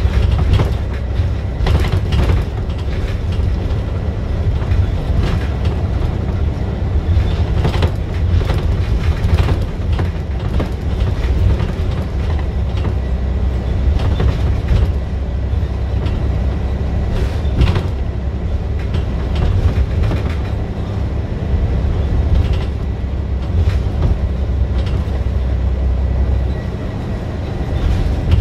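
Scania single-deck bus's diesel engine running hard under way, heard from inside the saloon, with frequent body and fitting rattles and knocks. The engine sound drops back a little near the end.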